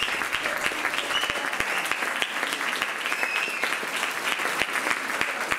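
Audience applauding steadily after a jazz quartet performance, with a few brief high whistles from the crowd.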